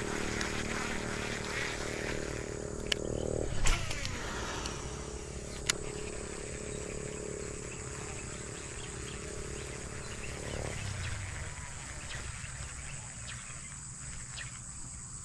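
Baitcasting reel cranked steadily, its gears humming as the lure is retrieved. The reel stops with a click about three and a half seconds in, starts again moments later and stops about eleven seconds in. A steady high insect drone runs underneath.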